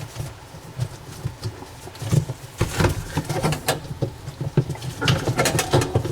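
Irregular clatter of plastic parts inside a dishwasher tub being pried and pulled loose by hand: scrapes, clicks and knocks, busiest about two seconds in and again near the end.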